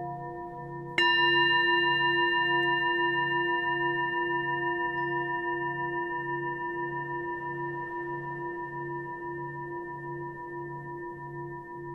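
A singing bowl struck once about a second in, ringing out with a bright, many-toned ring that slowly fades. Under it a steady drone of other ringing tones with a low tone pulsing slowly, a little over once a second.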